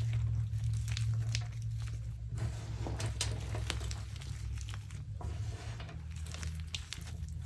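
Hands crushing and crumbling lumps of reformed gym chalk from a giant chalk 'cupcake' baked too short, with many small crackles and crunches as the chunks break and powder sifts through the fingers. A steady low hum runs underneath.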